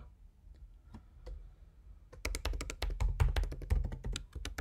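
Typing on a computer keyboard to re-enter a password into a web form. A few separate key clicks come first, then a quick, dense run of keystrokes from about two seconds in.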